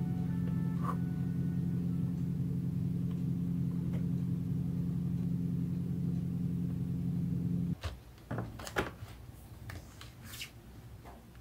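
A steady low hum that cuts off suddenly about eight seconds in, followed by a few light clicks and rustles from handling the paint box and paper.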